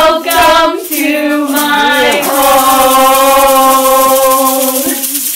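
A small group singing together while shaking egg shakers, the shakers a steady rattling hiss under the voices. The last sung note is held for about two and a half seconds.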